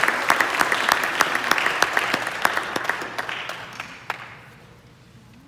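Audience applauding, with sharp single claps close by, fading out about four seconds in.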